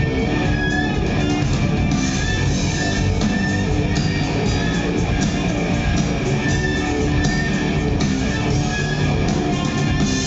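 Rock band playing live: electric guitar and bass guitar over a drum kit, with steady cymbal and drum strikes and no singing.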